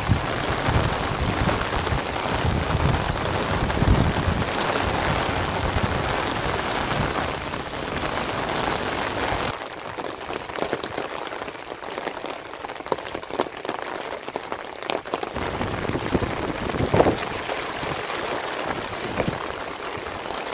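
Heavy rain pattering onto flooded ground and standing water, a steady hiss of drops. It is louder, with a low rumble under it, for about the first half, then lighter. A single brief thump comes about three quarters of the way through.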